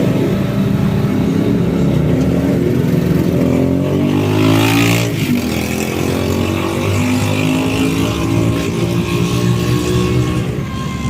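Road traffic: motor vehicle engines running, with one vehicle passing close about four to five seconds in.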